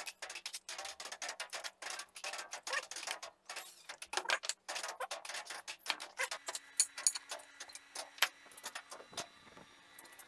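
Irregular clicks and knocks of tools being handled on a wooden workbench, dense for about six seconds and sparser after that, over a faint steady hum.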